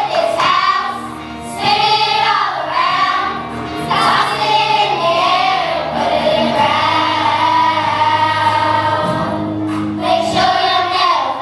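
Children's choir singing together over instrumental accompaniment, with several long held notes in the second half.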